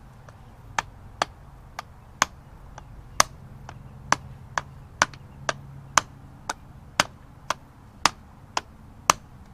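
Steady hammering on metal: about sixteen sharp strikes at roughly two a second, beginning about a second in.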